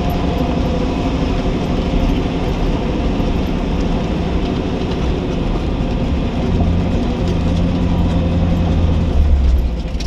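Four-wheel-drive truck driving slowly on a rough dirt track, heard from inside its cab: a steady engine hum under tyre and cab noise. About six and a half seconds in, the engine's low hum grows louder.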